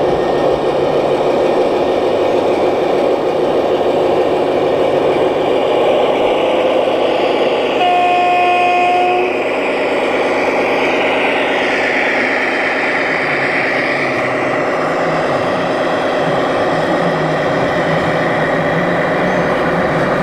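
A model vehicle's horn sounds once, one steady tone for about a second and a half, over continuous loud background din.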